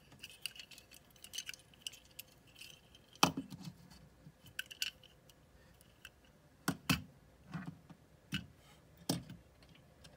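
Small die-cast metal toy F-14 Tomcat jets clicking and clinking as they are handled and set down on a tabletop against one another, with a few sharper knocks: the loudest about three seconds in and a quick pair near seven seconds.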